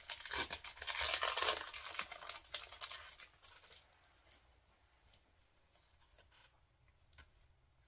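Foil booster-pack wrapper being torn open and crinkled, a dense rustle for about three seconds, followed by a few faint clicks.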